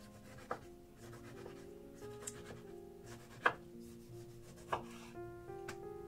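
Chef's knife slicing a tomato on a wooden cutting board: four sharp knocks of the blade hitting the board, the loudest about halfway through.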